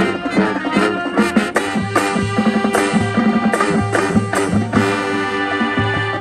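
High school marching band playing: loud brass chords held over sharp, frequent drum hits.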